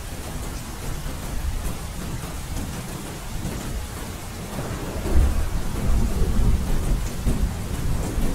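Steady rain with a low rumble of thunder that swells and grows louder about five seconds in.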